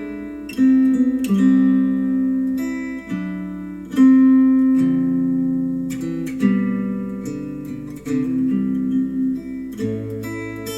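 Acoustic guitar music played back through Adam Audio A3X powered studio monitors: plucked notes and chords that ring and fade, a new one every second or so.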